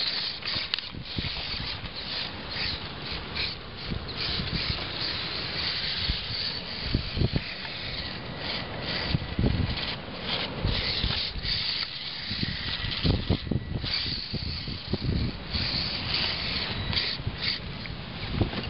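Losi Mini Rock Crawler's small electric motor and gear drive whining in short stop-start bursts as the truck crawls over rock. Irregular low rumbles of wind on the microphone run through it.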